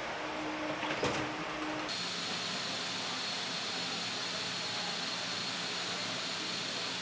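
Steady machinery and ventilation noise aboard an aircraft carrier. At first a low hum with a couple of knocks about a second in, then from about two seconds on a broader steady rush with a thin high whine, the hangar bay's ambient noise.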